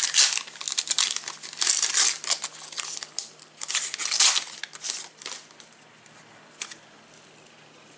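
Panini Adrenalyn XL card pack's plastic wrapper crinkling in repeated bursts as it is handled and torn open, for about the first five seconds. After that it goes quiet apart from a single tap.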